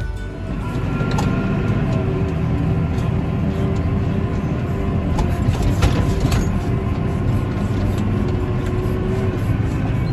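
Tractor engine running and driving noise heard from inside the cab, steady throughout, with a few short knocks or rattles about a second in and around the middle.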